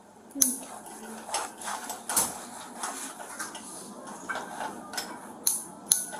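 Metal handcuffs clinking and clicking as they are worked at a person's wrists: a few sharp clicks, about half a second in, around two seconds in, and twice near the end.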